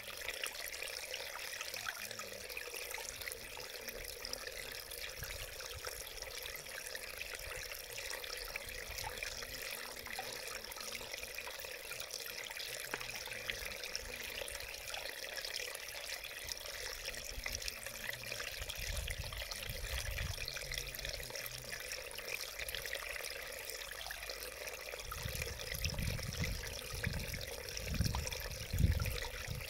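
Small mountain stream trickling and splashing over mossy rocks, a steady gurgling rush of water. Some low rumbles come through in the last few seconds, the loudest just before the end.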